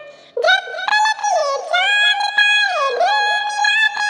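High-pitched, cartoon-like synthetic voice singing a naat unaccompanied, with long held and gliding notes that begin after a short gap about half a second in.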